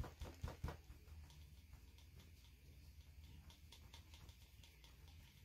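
Faint dabbing and tapping of a paint-loaded paper towel on a canvas board: a few sharper taps in the first second, then light scattered ticks.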